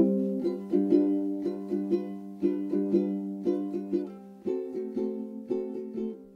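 Background music: a light tune of plucked string notes, about two or three a second, fading out steadily.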